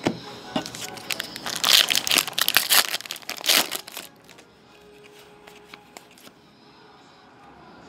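Foil trading-card pack crinkling and being torn open, a burst of rustling and ripping lasting about three seconds, followed by quiet clicks of cards being handled.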